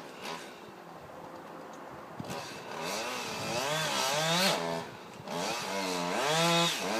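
Chainsaw cutting through a tree trunk, its engine speed rising and falling as it works in the cut. It is faint for about the first two seconds, then grows louder.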